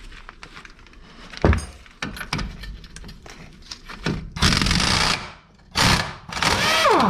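Metal hand tools and loose bolts clinking and knocking, with one heavy thunk about a second and a half in. Longer rough, scraping-type noises follow in the second half.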